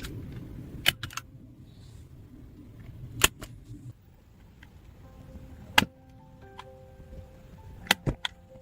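A series of sharp knocks and clacks, about six of them at irregular intervals, two of them close together near the end. They sit over a low rumbling noise that dies away partway through.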